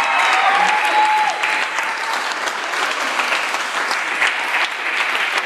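Audience applauding and cheering at the end of a live band's song, with one drawn-out whoop over the first second or so.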